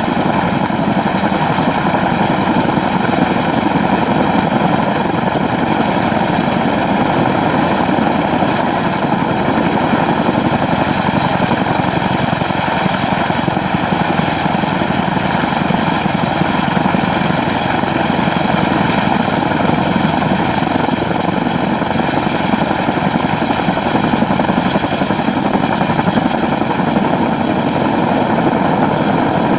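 Helicopter in flight: a loud, steady rush of rotor and turbine noise with a thin steady whine above it, unchanging throughout.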